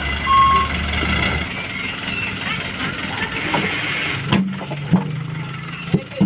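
A truck engine running, with a reversing beeper sounding once near the start. The deep rumble drops away about a second and a half in, and three sharp clicks come near the end.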